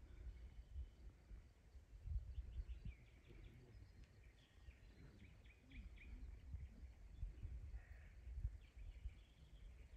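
Faint outdoor ambience: an uneven low rumble of wind on the microphone, with small birds chirping faintly in the distance, in short runs through the middle and again near the end.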